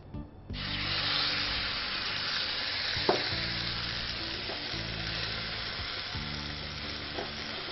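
Stuffed chicken leg sizzling in hot oil in a stainless steel frying pan, the hiss starting suddenly about half a second in and then holding steady. A single light knock sounds about three seconds in.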